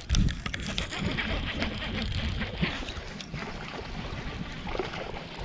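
Wind buffeting the microphone in low gusts at the start, then a steady crackling, splashy hiss of moving water beside a small fishing boat.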